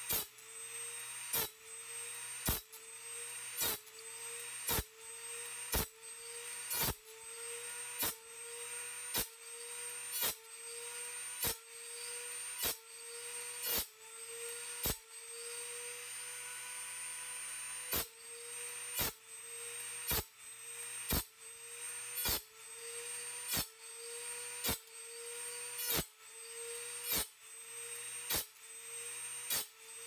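Dremel rotary tool running on a hand-cranked Norwood sawmill blade sharpener, grinding the band blade tooth by tooth. A sharp click comes about once a second as each tooth is indexed and ground, and the tool's whine sags and climbs back after each one. About halfway through the clicks stop for roughly three seconds while the Dremel keeps running.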